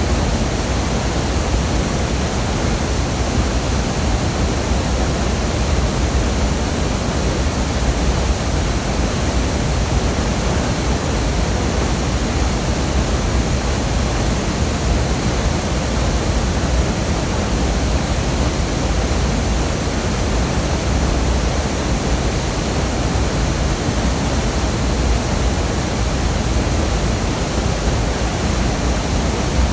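Longdang Waterfall: water pouring down in a loud, steady rush with a deep rumble underneath.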